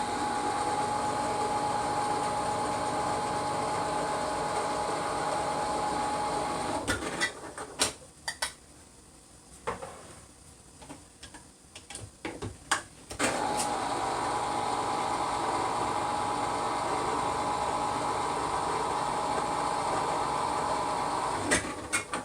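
Electric can opener running to open cans of gungo peas: a steady motor whine for about seven seconds, a pause filled with a few clicks and knocks, then a second run of about eight seconds.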